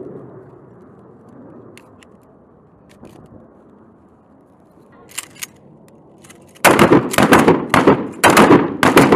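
Faint metallic clicks of 12-gauge shells being pushed into the magazine of an M870 pump-action shotgun. About two-thirds of the way in, a rapid, overlapping string of loud gunshots starts, ringing out between shots, with a short break partway through.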